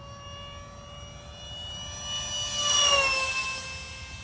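Electric ducted fan of a remote-controlled F/A-18 foam jet whining steadily in flight. It grows louder to a peak about three seconds in as the jet flies past, then its pitch drops and it fades.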